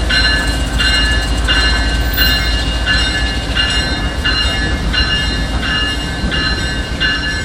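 Locomotive bell ringing in a steady rhythm, about three strokes every two seconds, over the low rumble of a diesel locomotive.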